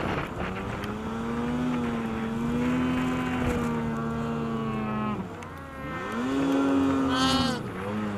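Arctic Cat M8000 snowmobile's 800 cc two-stroke twin running under throttle in powder, the note steady, then falling as the throttle is let off about five seconds in, revving back up a second later and easing off again near the end.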